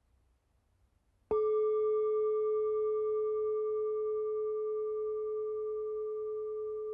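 Singing bowl struck once about a second in, ringing with one steady low tone and fainter higher overtones that slowly fade.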